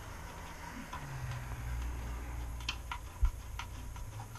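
Scattered light clicks and taps as the retaining clips that hold a screen in a storm door are fitted, with one dull knock a little after three seconds in, over a low steady hum.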